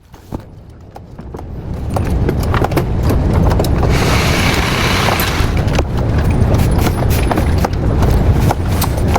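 Car on the move, a low road-and-engine rumble building over the first two seconds as it picks up speed, then holding steady, with frequent small clicks and a brief rush of hiss about four seconds in.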